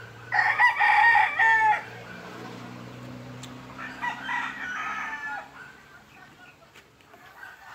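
A rooster crows loudly, then a second, fainter crow follows a couple of seconds later.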